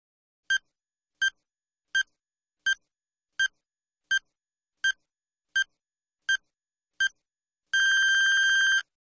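Electronic countdown-timer beeps: ten short, identical high beeps about 0.7 s apart, then one longer beep of about a second near the end, marking that the time is up.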